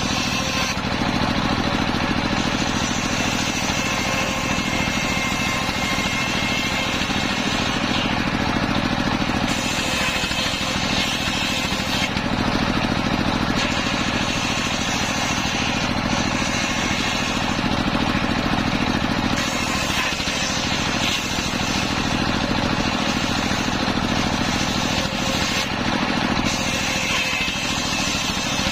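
Engine-driven homemade circular saw running steadily while sawing teak wood. The high sawing noise comes and goes every few seconds over the engine's constant drone.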